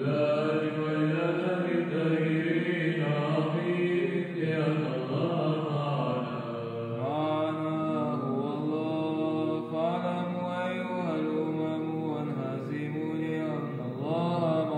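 A man chanting Byzantine Orthodox chant, one vocal line in long melismatic phrases with notes that are held and slide up and down.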